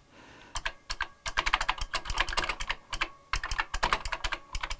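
Typing on a Tandy Color Computer 2 keyboard whose original keycaps now press mechanical key switches on a Keyfix2 board: a quick run of keystrokes starting about half a second in, with a brief pause in the middle.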